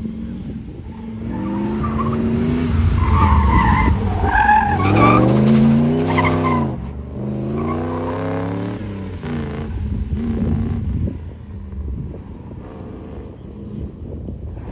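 Third-generation Pontiac Firebird at full throttle on an autocross course: the engine revs climb, drop sharply about six and a half seconds in as it shifts, then climb again, with tires squealing through the corners.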